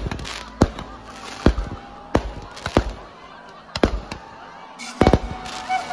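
Aerial fireworks bursting overhead: a run of sharp bangs roughly one or two a second, some trailed by a short crackling hiss, with a quick cluster of bangs near the end.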